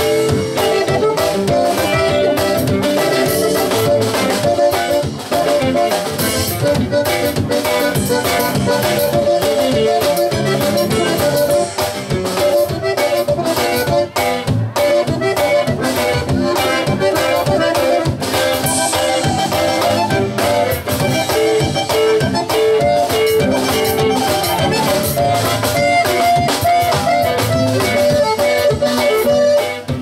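Live conjunto band playing: button accordion carrying the melody over acoustic guitar, electric bass and a steady drum-kit beat.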